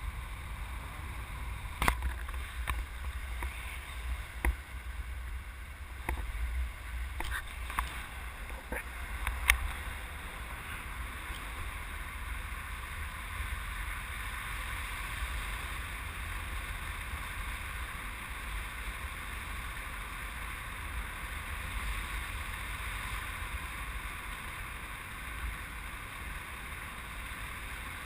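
Steady wind rushing over the microphone in flight on a tandem paraglider, a low rumble with a hiss over it. A few sharp clicks come in the first ten seconds.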